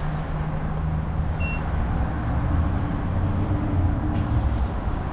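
Gas station fuel dispenser running with a steady low hum as fuel is pumped into the tank.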